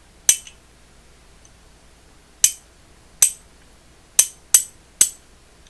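Williams S-52EHA 1/2-inch-drive ratchet being worked with its cover plate off: the pawl snapping over the gear teeth in six sharp metallic clicks at irregular intervals.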